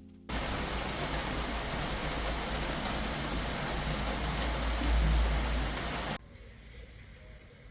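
Steady rain falling, an even hiss that cuts in suddenly just after the start and cuts off abruptly about six seconds in, leaving a much quieter hiss with a few faint ticks.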